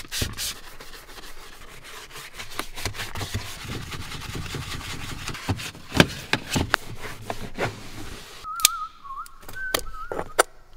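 Brush scrubbing and rubbing on the rubber floor mat and pedals of a truck cab, with many sharp clicks and knocks. Near the end a person whistles a short wavering tune.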